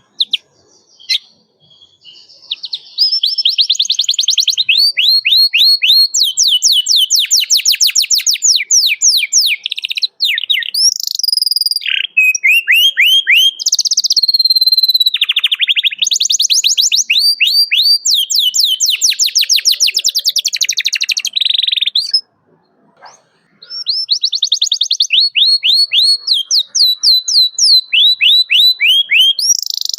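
Domestic canary singing: long, fast trills of repeated high notes, switching from one note type to another every second or two. The song starts a couple of seconds in and breaks off briefly about two-thirds of the way through.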